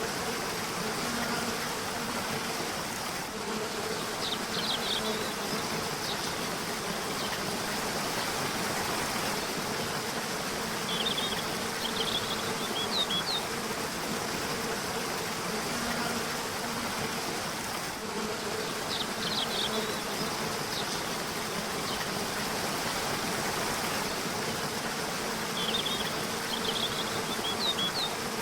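A river rushing steadily, with short bursts of bird chirping about four times, every seven or eight seconds. A faint low buzz, like a flying insect's, comes and goes.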